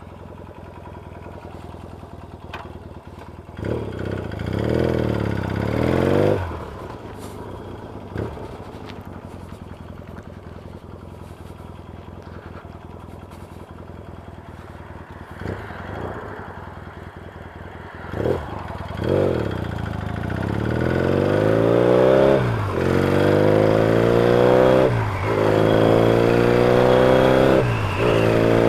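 Yamaha XS650 parallel-twin engine idling, revved briefly, then pulling away and accelerating up through the gears, its pitch rising in each gear and dropping at every shift, three shifts near the end.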